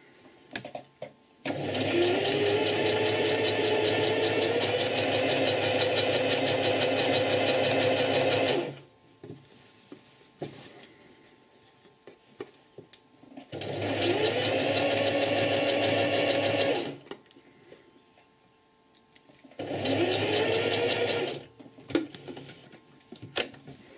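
Domestic sewing machine stitching in three runs, a long one of about seven seconds and then two shorter ones, its motor's whine rising as each run gets going. Between runs there are quiet pauses with small clicks of handling.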